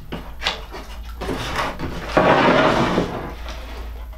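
Wooden chisel-holder panel being handled on the workbench: a few light knocks, then about a second of wood scraping on the bench about two seconds in as the panel is stood upright.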